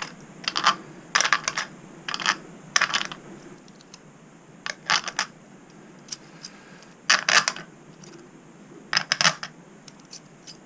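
Small metal parts clinking: nuts and bus bars being handled and fitted on the terminals of LiFePO4 battery cells. Short clusters of sharp metallic clicks, about eight in all, a second or two apart.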